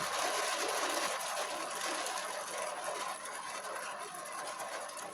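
Rain falling steadily, a soft even hiss that eases slightly toward the end.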